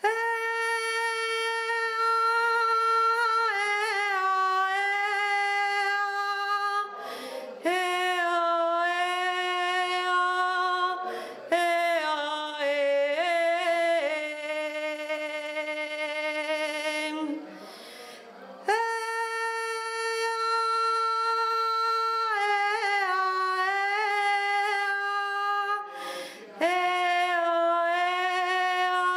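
A single high voice singing unaccompanied, in the style of an Asturian tonada. It holds long notes with ornamented turns and falls in pitch through each phrase, with short breath pauses between the phrases.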